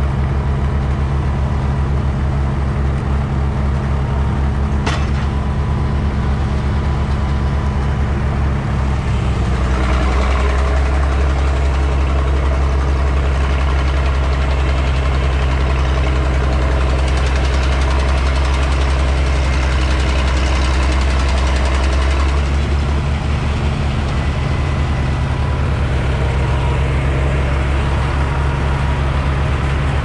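Farm tractor engine running steadily as its front-end loader carries a heavy oak log; the engine note shifts about a third of the way through and settles back about two thirds through, as the throttle or load changes.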